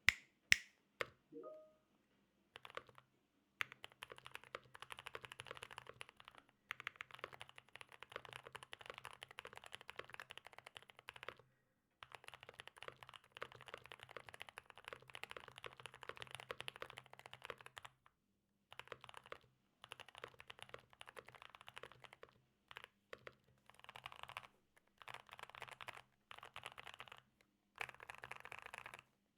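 Typing on a custom GMMK Pro mechanical keyboard built with lubed and filmed Boba U4T tactile switches, an FR4 plate, tape mod and GMK Dolch keycaps: fast runs of keystrokes in bursts of a few seconds with short pauses between them. A couple of sharp clicks come at the very start.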